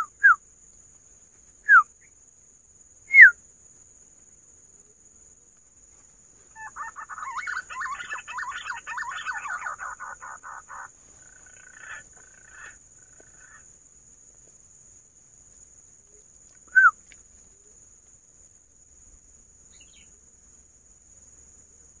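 Green pigeons (punai) calling: a few short, loud whistles falling in pitch, then a run of rapid warbling chatter from about seven to eleven seconds in, and one more falling whistle later. A steady high insect drone lies underneath.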